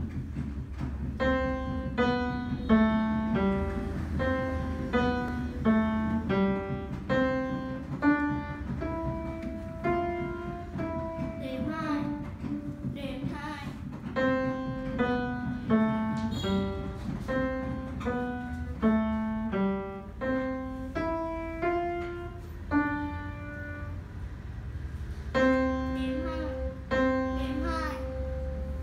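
A piano piece played at a moderate pace, one clear note after another with some held notes, over a steady low hum.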